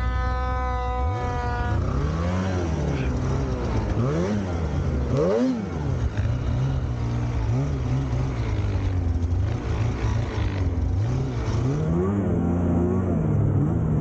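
Polaris Khaos 9R snowmobile's two-stroke engine under way. It holds one steady note for the first couple of seconds, then revs up and down again and again as the throttle is worked while riding.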